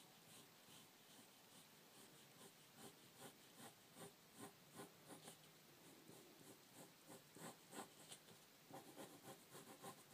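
Faint scratching of a pencil on paper, drawn in short strokes several times a second.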